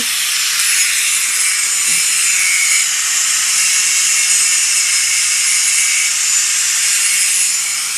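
Power grinder cutting through a link of #35 steel roller chain: a steady, high hissing grind that holds even throughout.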